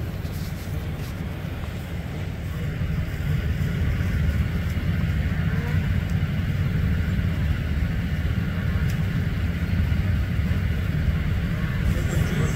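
Snowmobile engines running in the staging area, a steady low rumble that grows a little louder about four seconds in, with wind buffeting the microphone.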